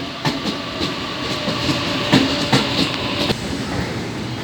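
A train running on the rails, its wheels clattering over the track joints; the clatter stops about three seconds in.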